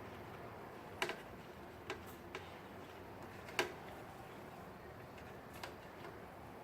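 A few scattered light clicks and knocks of kitchen utensils and containers while ingredients are being added, the loudest about a second in and again past the middle, over a quiet room hush.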